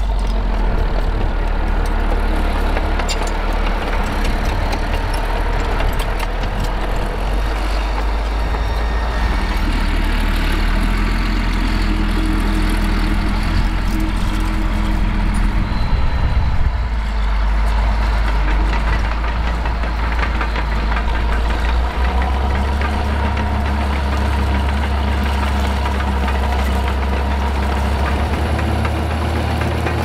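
Caterpillar D6D SA VHP crawler tractor's six-cylinder turbo diesel running loud and steady while it works an 8-furrow mounted plough, its steel tracks clattering. The engine note shifts a few times.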